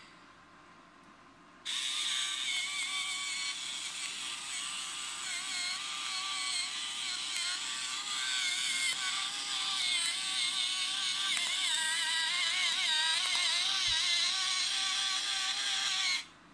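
Electric pepper mill's small motor grinding peppercorns: a whine that wavers in pitch over a gritty crunching hiss. It switches on about two seconds in and stops abruptly near the end.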